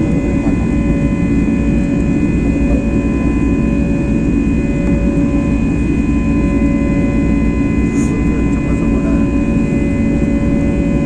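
Jet aeroplane engines running steadily during take-off. A dense, even low noise carries several constant whining tones above it.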